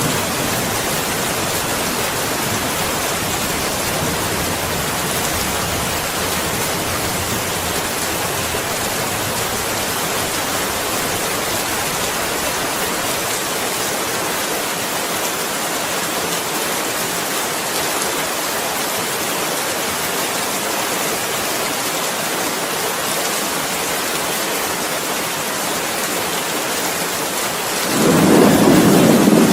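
Steady heavy rain falling, with a louder rumble of thunder starting near the end.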